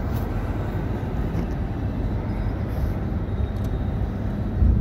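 Steady road and engine noise inside the cabin of a car cruising on a highway, a low, even noise from tyres and engine, with a brief louder bump near the end.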